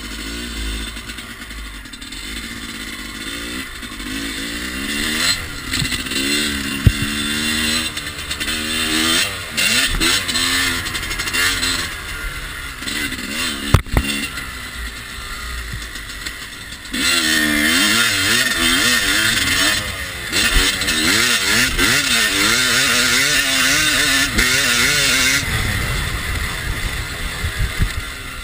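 Yamaha YZ250 two-stroke single-cylinder dirt bike engine being ridden hard, its pitch climbing and dropping again and again with throttle and gear changes. It is loudest for several seconds in the second half. A few sharp knocks come through as the bike crosses the track.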